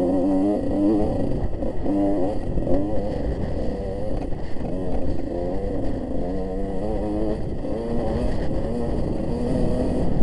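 Enduro motorcycle engine running, its pitch rising and falling again and again as the revs change.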